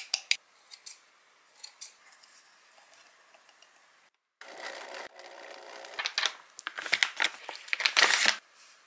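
A few sharp taps of a plastic blender cup knocked against a glass bowl. After a cut, rustling and crinkling of a rice flour pouch being handled and opened, growing loudest just before the end.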